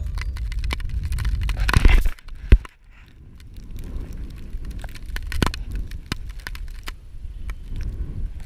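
Wind rumbling on the microphone of a GoPro carried by a moving skier, with scattered clicks, knocks and scrapes from handling and ski gear. The loudest knocks come about two seconds in.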